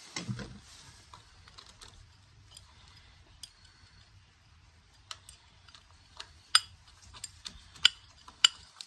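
Small metal parts clicking and ticking as the steel pieces of a home-made quick-release bandsaw vise mechanism are handled and fitted together by hand. There is a soft knock about a quarter second in, then scattered sharp clicks, the three loudest near the end.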